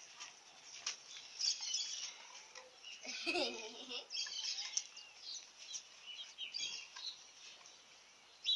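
Small birds chirping and twittering in quick, repeated short calls, with a brief lower-pitched call about three seconds in.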